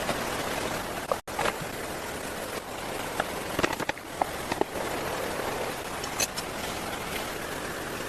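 Steady rushing of river water with scattered light clicks and taps; it cuts out for an instant about a second in.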